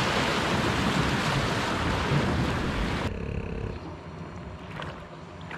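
Rushing river water and wind buffeting the microphone at the bow of a moving boat. About three seconds in this stops abruptly, leaving a much quieter background inside the boat with a few faint clicks.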